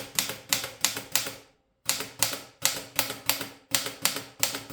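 1952 Erika model 8 manual typewriter being typed on, its typebars striking the platen at about four strokes a second. There is a brief break about a second and a half in before the typing resumes. The typebars work smoothly and the carriage does not stick.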